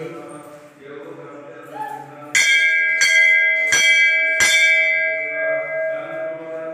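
Hanging brass temple bell rung by hand, struck four times in quick succession starting about two seconds in, its clear ringing lingering and slowly fading afterward.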